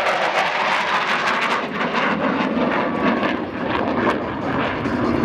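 Jet noise from an F-16 fighter flying a display pass: a loud, steady rushing sound with a crackle, its weight shifting lower in pitch near the end as the jet draws away.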